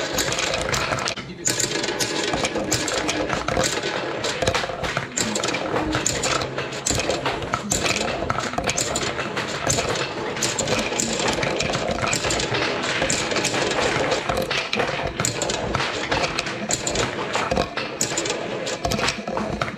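Marbles clattering and rolling through a marble run, a dense, continuous stream of sharp clicks and rattles.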